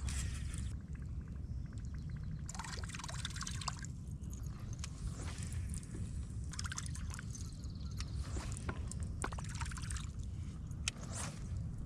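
Water lapping and trickling against a fishing kayak's hull in uneven splashy patches, over a steady low rumble.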